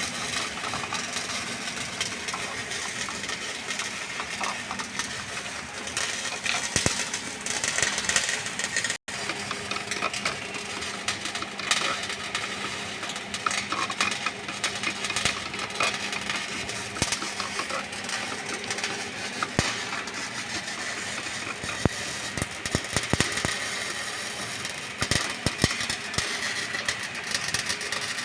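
MIG welding arc crackling and sputtering continuously, dense with sharp spatter clicks, over a steady low hum. The sound breaks off for an instant about nine seconds in.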